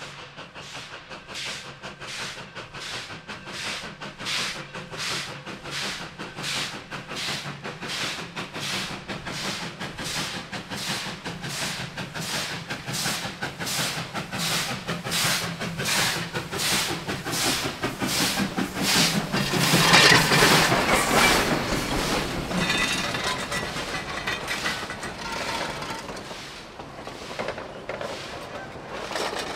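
Narrow-gauge steam locomotive No. 480, a K-36 2-8-2, approaching and passing with a regular chuff of exhaust beats about two a second, growing louder and loudest as the engine goes by about twenty seconds in. After it the passenger cars roll past with a rattling clatter of wheels on rail.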